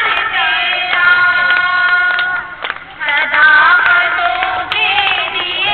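Women's voices singing through a handheld microphone, holding long, steady notes, with a short break about halfway through.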